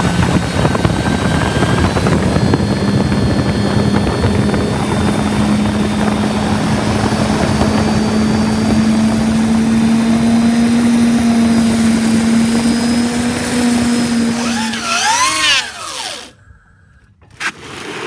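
Electric outboard motor driving a boat at speed: a steady motor hum that slowly rises in pitch, over rushing water spray and wind. Near the end it warbles briefly and then cuts off.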